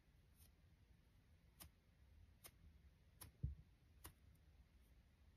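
Near silence with faint, light ticks roughly once a second and one soft, low thump about three and a half seconds in.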